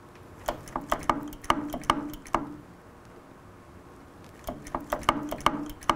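Sharp knocks and clicks at the front brake caliper of a 2005 Suzuki GSX-R750 while its brakes are being bled. They come in two quick bursts, one in the first couple of seconds and another near the end.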